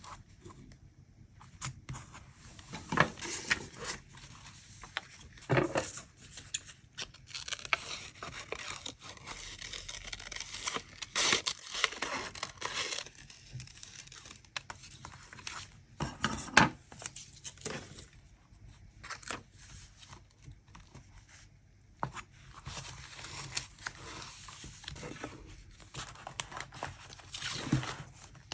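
Close-up paper and sticker handling while decorating a journal: stickers and paper scraps peeled, rustled, slid and pressed down, with crinkling, scraping and a few sharp taps.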